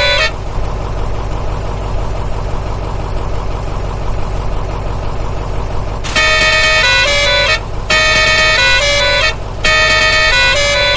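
A steady low hum for about six seconds, then a loud horn-like tone that sounds in three long blasts of about a second and a half each, with short breaks between them.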